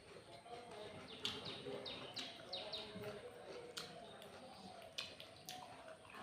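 A small bird chirping a quick run of short, falling high notes, with faint voices in the background and a few sharp clicks.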